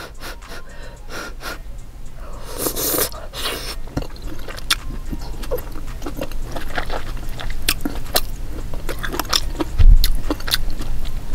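Close-up eating sounds of a person chewing a steamed soup dumpling: wet mouth clicks and smacks throughout, with a short noisy rush about two and a half seconds in.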